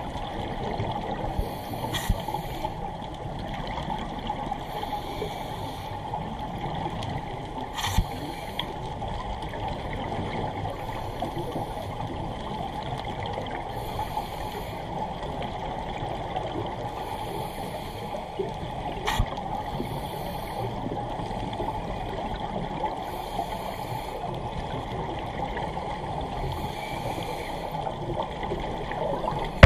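Underwater ambience through a camera housing: a steady muffled hiss, with scuba regulator breathing and exhaled bubbles coming back about every three seconds. There are a few sharp clicks.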